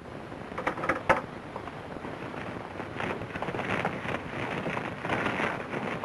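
Shuffling footsteps and clinking of ball-and-chain leg irons, over the hiss of an old film soundtrack. A few sharp clicks come about a second in, and a busier clatter starts about three seconds in.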